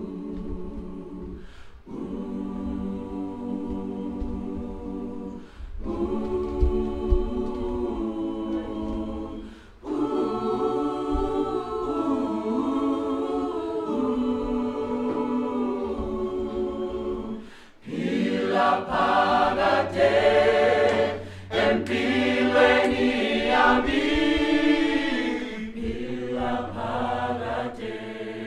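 Mixed choir of men's and women's voices singing a cappella in harmony, holding chords in phrases a few seconds long with short breaks between them. About two-thirds of the way through it swells louder and higher.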